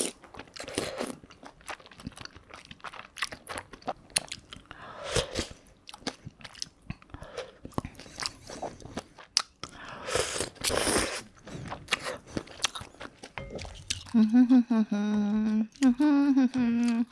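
Close-miked eating of soup and noodles: slurps from a ladle, wet chewing and small mouth clicks. In the last three seconds a woman hums a cheerful tune, louder than the eating.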